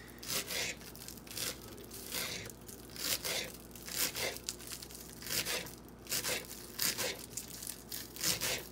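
Kitchen knife chopping green onions on a cutting board: a steady run of crunchy cuts, about two a second.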